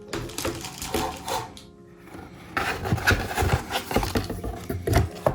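Unboxing handling noise: rustling and irregular light knocks and clicks as a wireless keyboard and its packaging are handled. They come thicker in the second half.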